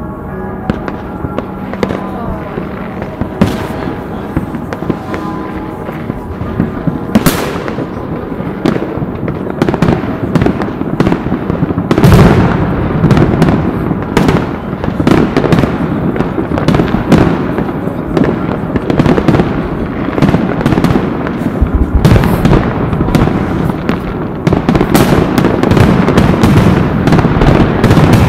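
New Year's fireworks going off all around: a dense, continuous crackle of firecrackers and exploding rockets, with a few louder bangs standing out.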